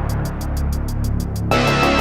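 Background music with a steady beat and a deep bass line; it turns brighter and fuller about one and a half seconds in.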